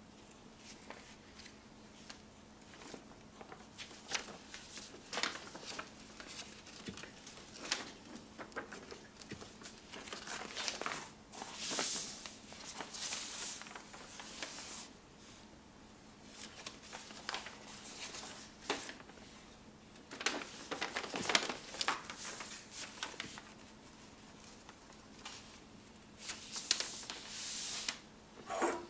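Folded paper road map being handled and unfolded: crinkling and rustling paper with many small crackles and taps, and longer rustles as the sheet is opened out, about twelve seconds in and again near the end.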